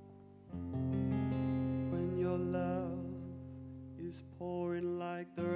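Music led by acoustic guitar, swelling in loudly about half a second in, with a wavering melody line over held chords. It drops out briefly near the end.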